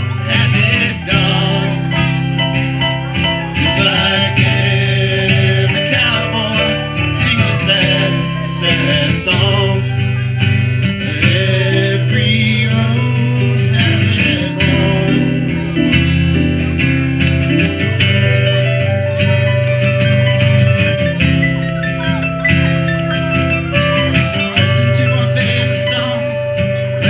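Live acoustic band music through a PA: acoustic guitars playing over a steady, strong low bass part, with singing.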